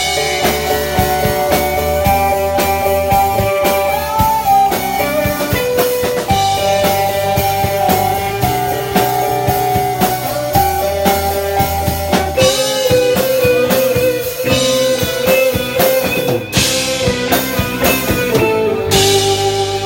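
Instrumental passage by a small band of saxophone, electric guitar, bass guitar and drum kit: a held melody line over a steady beat, with several cymbal crashes in the second half.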